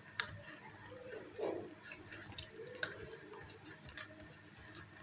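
Faint, scattered clicks of a computer mouse over quiet room tone.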